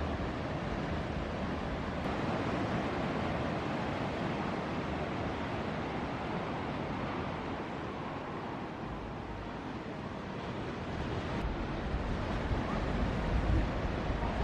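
Ocean surf rushing steadily, with wind buffeting the microphone in low rumbles now and then.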